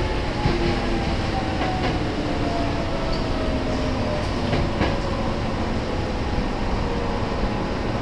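Nose Electric Railway 1700 series electric train running, heard from inside the front car: steady wheel and running noise with a few clacks over rail joints, and a thin motor whine that falls slowly in pitch.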